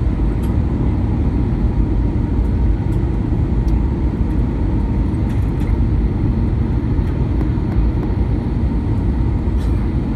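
Steady low rumble of engine and airflow noise inside the cabin of an Airbus A320 descending on approach to land, with a faint steady whine above it.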